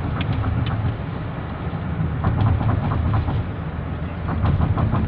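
Road and engine noise inside a moving car's cabin: a steady low rumble, with three short runs of light clicking.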